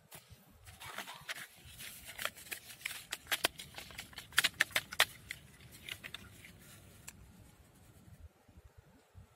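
A hand digging through loose soil and pulling a plastic toy airplane out of it: gritty scraping and crackling crunches, thickest around three to five seconds in, then quieter near the end.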